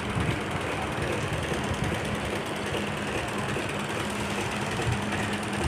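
Multi-needle pleating machine running steadily, stitching pleats into fabric: a continuous fast mechanical clatter over a steady low hum.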